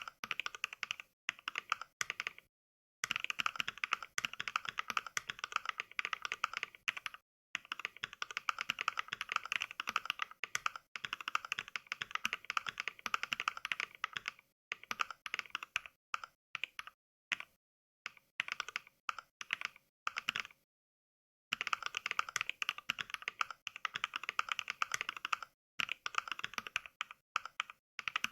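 Mechanical keyboard typing as played by the Mechvibes app from NK Cream switch samples, one click per keystroke. The clicks come in fast runs, broken by short pauses of dead silence about three seconds in, about seven seconds in and around the twenty-first second.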